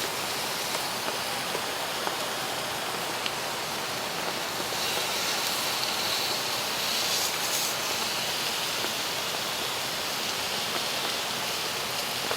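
Ribeye steaks sizzling in a hot cast iron pan, a steady hiss that grows brighter about five seconds in, over the rushing of a rain-swollen creek.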